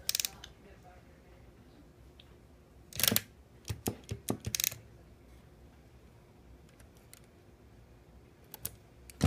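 Hermes typewriter mechanism clicking as it is worked by hand: a click near the start, a loud clack about three seconds in followed by a quick run of lighter clicks, and a few more clicks near the end.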